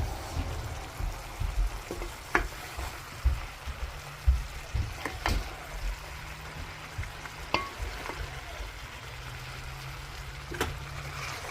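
A pumpkin and string bean stir fry cooking in a pan with a low sizzle, stirred with a utensil that clinks sharply against the pan four times.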